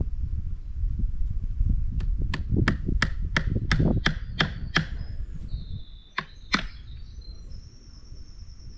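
A hand tool striking wood in a quick run of about nine blows, roughly three a second, then two more blows after a short pause.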